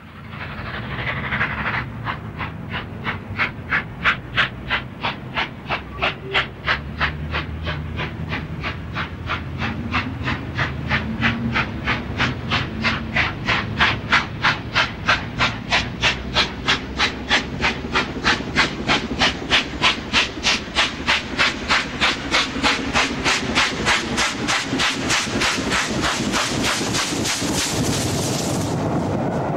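Stanier LMS Coronation-class Pacific 46229 Duchess of Hamilton, a four-cylinder steam locomotive, working hard: a rapid, even beat of exhaust chuffs, about three to four a second, growing louder as it approaches. Near the end the beats give way to a steadier rumble of the train passing.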